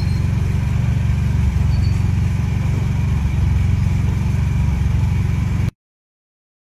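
A steady low rumble with a faint steady high tone over it, which cuts off suddenly to silence near the end.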